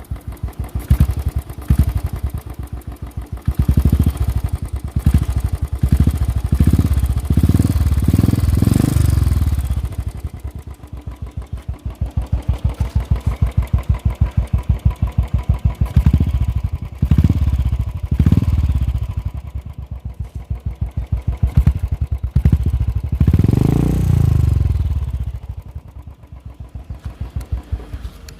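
Royal Enfield motorcycle with a Peashooter exhaust and no dB killer, thumping steadily at idle. It is revved in short throttle blips several times in the first third, again about two-thirds through, and once more near the end.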